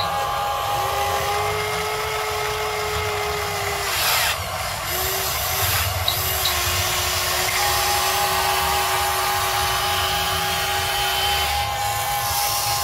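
Huina 580 RC excavator's electric hydraulic pump whining steadily as the arm and bucket dig into soil. A second, lower whine comes in about a second in, breaks off briefly around four seconds, and returns until near the end, following how the arm is worked.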